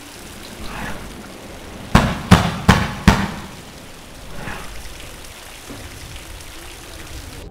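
Four loud knocks in quick succession, about a third of a second apart, on a door, over a steady background hiss.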